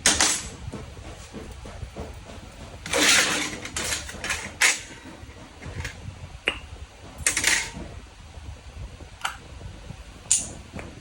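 Metal tools and fuel pump parts being handled at a workbench: clinks and clatter, with several short noisy bursts spread through, one about three seconds in and another about seven seconds in.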